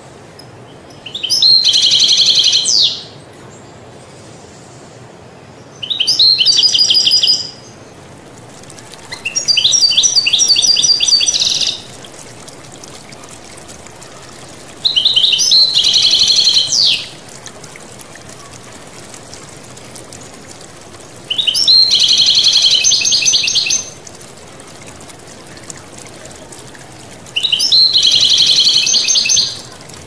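European goldfinch singing: six phrases of rapid twittering, each about two seconds long, with pauses of several seconds between them, over the steady murmur of flowing water.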